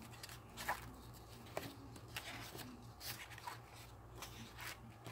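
Sheets of paper and cardstock being turned over by hand, giving several faint, brief rustles and slides, over a steady low hum.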